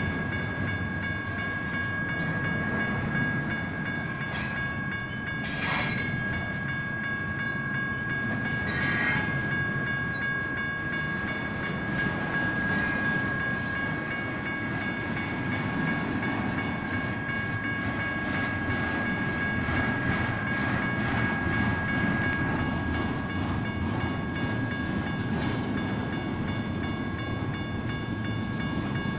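Two General Signals Type 1 mechanical crossing bells ringing steadily while a BNSF doublestack intermodal freight train rumbles past, with a few short sharp clanks from the moving cars.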